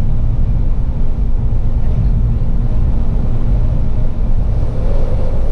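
Steady low rumble of a Jeep Wrangler's engine and tyres cruising at highway speed, heard from inside the cabin.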